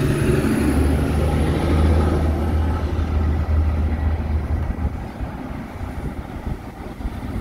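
Semi-trailer truck's diesel engine running as it drives past, a loud low hum for the first four to five seconds that then fades away.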